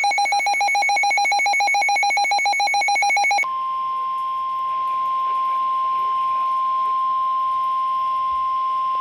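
Weather radio alert tones: a rapidly pulsing electronic beep for the first three and a half seconds, then a single steady tone, the NOAA Weather Radio 1050 Hz warning alarm tone, held to just before the flash flood warning message.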